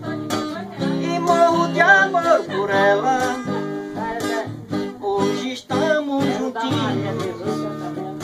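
A man singing along to his own strummed acoustic guitar.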